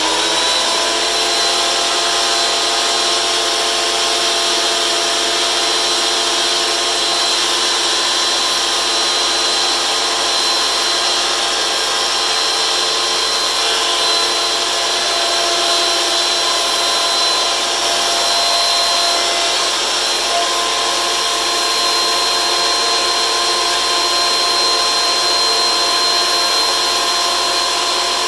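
DeWalt benchtop thickness planer running steadily at full speed, a loud motor-and-cutterhead whine with a high steady tone.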